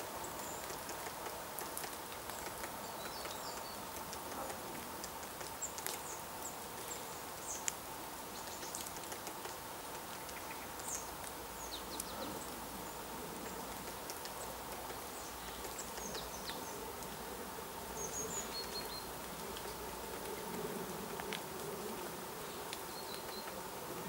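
Outdoor ambience: a steady faint hum and hiss, with scattered brief high-pitched bird chirps and a few faint clicks. There is no drumming rhythm.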